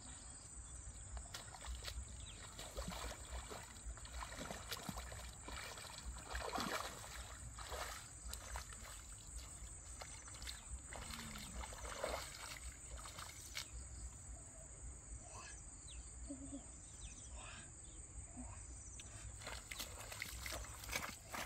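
Footsteps in sandals splashing and sloshing irregularly through shallow muddy water, over a steady high-pitched insect drone.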